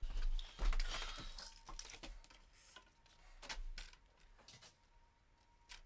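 A tape measure's steel blade pulled out and laid along a plastic PVC pipe: a rustling scrape about a second in, then a run of light clicks and taps of the tape and hands on the pipe.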